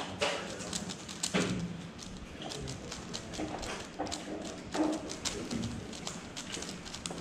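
YJ YuHu V2M megaminx being turned rapidly by hand during a speedsolve: a fast, uneven run of plastic clicks and clacks as the faces are flicked.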